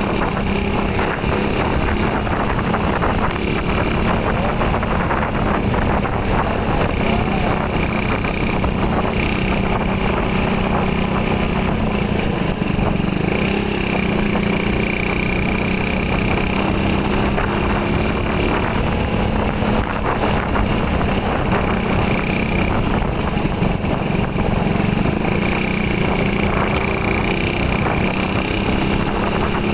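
Motorcycle engine running steadily while being ridden through the gears, heard from the rider's seat mixed with wind on the microphone and road noise.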